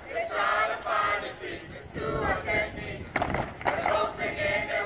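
A group of performers chanting loudly in unison, with a few sharp percussive hits from the routine.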